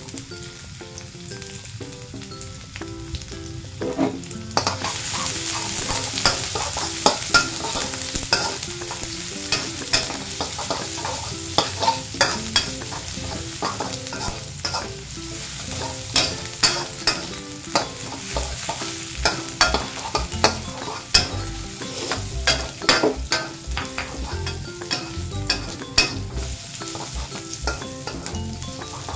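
Lemongrass and chopped onion sizzling in hot oil in a wok, stirred with a metal spatula that scrapes and clicks against the pan. The sizzle grows louder about four seconds in.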